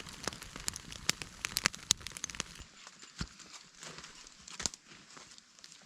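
Wood campfire crackling with many sharp pops. About two and a half seconds in, the background changes abruptly and the pops become sparser.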